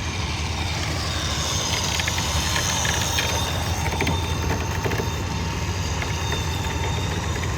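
A vehicle engine idling steadily, with a few faint clicks in the middle.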